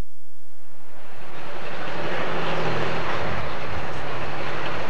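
Turbocharged diesel engine of a Pro Stock pulling tractor running at full throttle under heavy load as it pulls the sled, a loud, dense roar. It comes in strongly about a second in after a faint hum.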